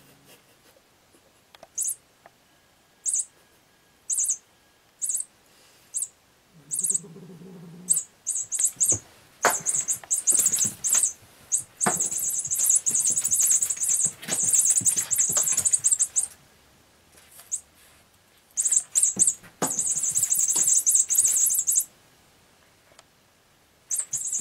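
High-pitched, bird-like twittering from a cat's feather wand toy as it is jiggled: short bursts at first, then longer runs. A few sharp knocks come as the cat pounces at it.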